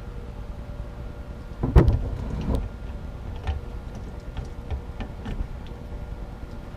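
Clunks and clicks from a Kawasaki KLX110 transmission being shifted through its gears by hand on the shift shaft. A heavy clunk comes about two seconds in, then several lighter clicks, over a low steady hum.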